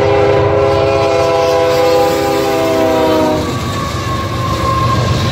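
Freight locomotive chord horn sounding one long blast of several notes, its pitch sagging slightly, over the low rumble of the train. About three and a half seconds in it stops abruptly, leaving a passing freight train's rumble with a steady high ringing tone.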